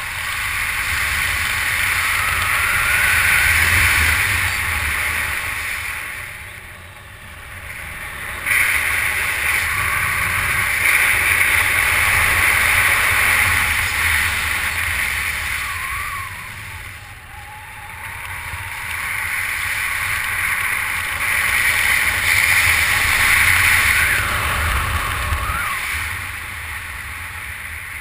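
Wind buffeting the microphone during a tandem skydive descent: a loud, rushing noise with a rumble beneath. It swells and fades in long waves, easing off about every ten seconds.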